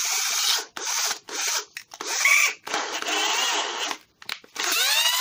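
Cordless 12 V drill-driver, powered by a pack of recycled 18650 laptop cells, run in a series of short bursts on the trigger. Its motor whines up in pitch as it spins up near the end, and it runs with plenty of power on the freshly charged pack.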